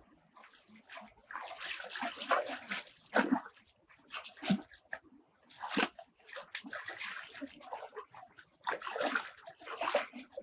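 Water splashing and sloshing in irregular bursts, the loudest and longest in the first half and again near the end.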